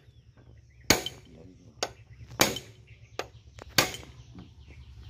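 Sharp metal knocks and clanks, about six at irregular intervals, as gears and shafts are worked inside an opened Sifang power tiller gearbox.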